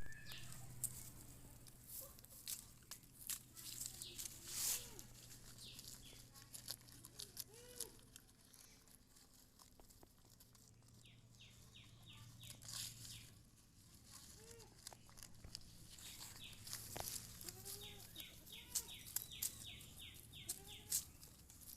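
Goats bleating, short separate calls scattered through the stretch and coming more often near the end, over a steady low hum and scattered clicks.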